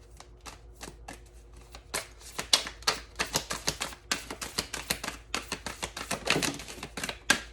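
A deck of tarot cards being shuffled by hand, cards slapping and clicking against each other. The clicks are sparse at first and come several a second from about two seconds in.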